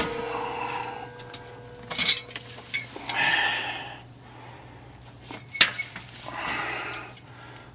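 A 16-inch round sheet-metal Belimo damper being handled and shifted. It gives a metallic knock at the start that leaves a ringing tone for a few seconds, then scrapes and rattles, with a sharp click a little past halfway.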